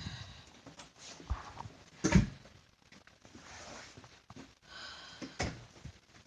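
Rustling and a few dull thumps of someone walking through a house while handling the recording device, the loudest thump about two seconds in and another about five and a half seconds in.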